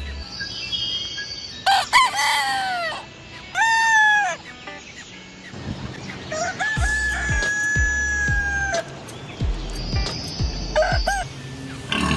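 Rooster crowing several times, the longest crow held for about two seconds past the middle, with some clucking.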